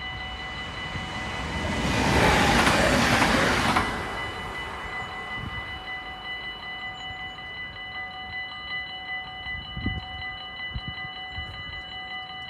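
Dutch level-crossing warning bell ringing steadily while a train rushes past. The train's rushing noise swells from about a second and a half in, is loudest for about two seconds, and fades by about four seconds in. The bell rings on after the train has passed.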